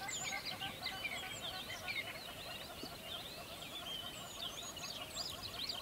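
Dense chorus of many birds calling at once, a steady chatter of short overlapping chirps and whistles.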